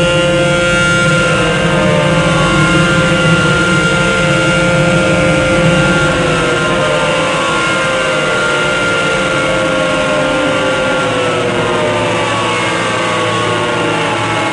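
Car wash dryer blowers running with a loud, steady rush and whine. From about six seconds in their pitch falls slowly as they wind down.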